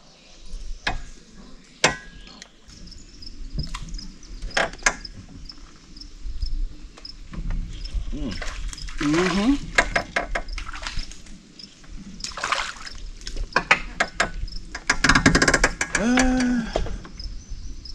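Scattered sharp knocks and clatter in a fishing boat, with a faint sound of water. A man's voice breaks in briefly twice without clear words, and insects chirp steadily throughout.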